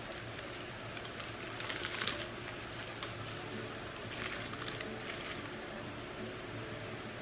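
Newspaper wrapping rustling and crinkling as it is handled and pulled out of a foil-insulated shipping bag, louder about two seconds in and again just past four seconds.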